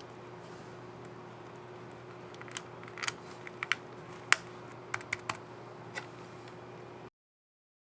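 Keys on a laptop's scissor-switch keyboard being pressed: about a dozen short, irregular clicks, clustered between about two and six seconds in, over a faint steady hum. The sound stops abruptly near the end.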